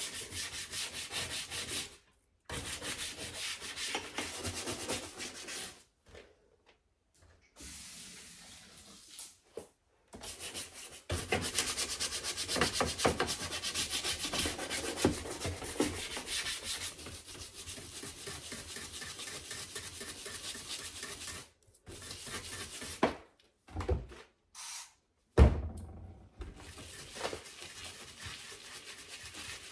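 Bristle bottle brush scrubbing fast, back and forth, over the textured front panel of a dishwasher, stopping and starting several times. Near the end come two knocks, the second the loudest sound.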